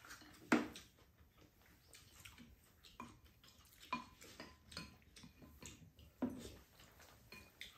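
Spoons and chopsticks clinking and tapping against ceramic bowls while eating: a handful of scattered light clinks, the sharpest about half a second in.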